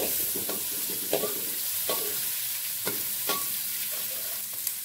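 Chopped garlic and shallots sizzling in butter in an aluminium wok, with a steady hiss. A metal spatula scrapes and knocks against the pan about once a second as they are stirred.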